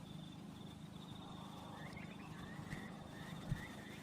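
Faint outdoor ambience: small chirping animal calls repeating over a steady, pulsing high trill and a low hum, with one soft thump about three and a half seconds in.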